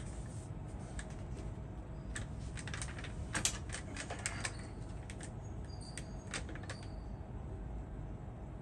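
Scattered light clicks and clatter of small laptop parts being searched through and handled on a repair bench, thickest in the first half, over a steady low hum.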